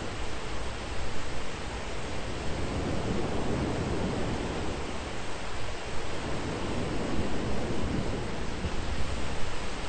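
Thunderstorm ambience: a dense, steady rush of heavy rain, with the low end swelling and easing in slow surges.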